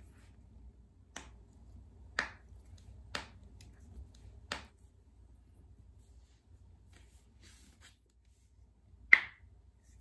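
Toe joints cracking as they are pulled and bent by hand: four sharp pops about a second apart, then after a pause one louder joint crack near the end.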